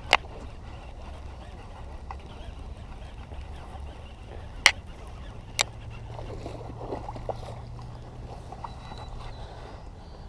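Handling noise as a hooked bass is reeled in and landed on a baitcaster: a few sharp clicks and knocks, two at the start and two near the middle, over faint steady background noise.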